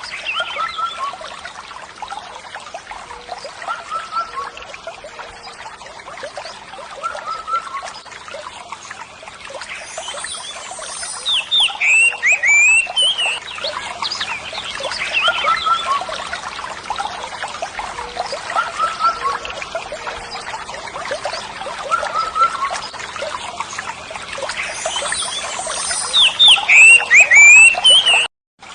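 Steady trickling water with bursts of short bird chirps about a third of the way in and again near the end, the same stretch of sound seeming to repeat; it cuts out briefly just before the end.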